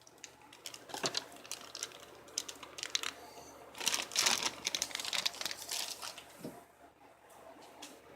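Packaging being handled by hand: rustling and crinkling with many small clicks and taps in clusters, quieter near the end.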